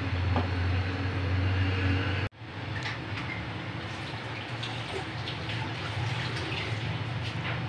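Ladle stirring rice and chana dal in jaggery water in a large aluminium pot, the liquid swishing, over a steady low hum. The sound cuts out for an instant about two seconds in, then carries on.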